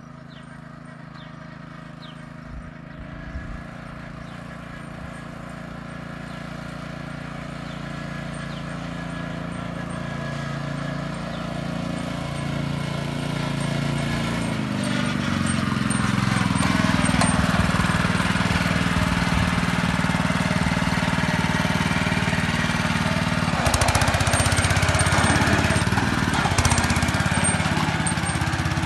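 Honda GX200 single-cylinder four-stroke engine on a two-wheel walking tractor towing a trailer, running steadily and growing louder as it approaches.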